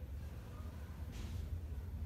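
Quiet room tone with a steady low hum, and one brief soft hiss a little after a second in.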